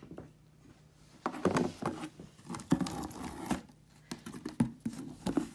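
A cardboard shipping box being opened and handled by hand. Irregular rustles and knocks start about a second in.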